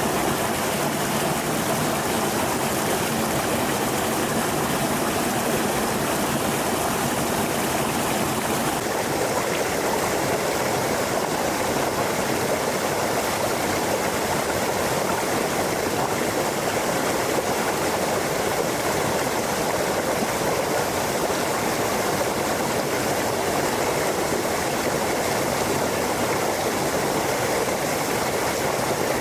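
A stream of flowing water, rushing steadily with no breaks; the tone shifts slightly about nine seconds in.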